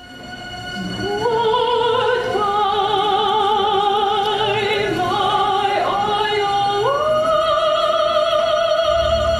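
Operatic soprano voices singing long held notes with wide vibrato in two independent lines, one stepping up in pitch about seven seconds in, over a steady sustained tone underneath. The music fades in over the first second.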